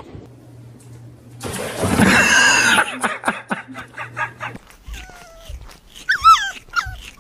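A small dog whimpering and yelping in high, wavering cries, the loudest yelp about six seconds in. Earlier, about a second and a half in, a harsh noisy burst lasts about a second, followed by a run of light clicks.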